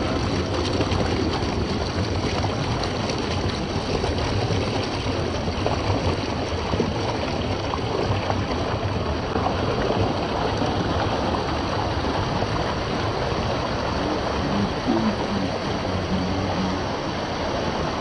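Fast-flowing water rushing steadily, an even, unbroken noise with no rhythm or pitch.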